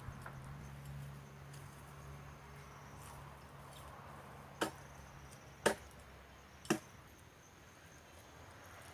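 Three sharp knocks of firewood being struck, about a second apart, over a faint low hum and a faint steady high-pitched tone.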